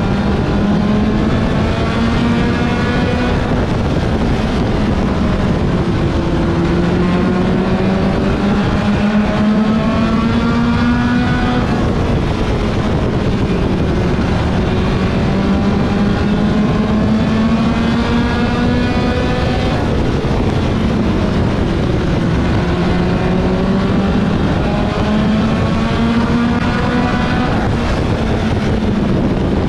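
Mini stock race car's four-cylinder engine at racing speed, with wind rushing over the roof-mounted microphone. The engine note climbs steadily along each straight and drops sharply into each turn, four times over.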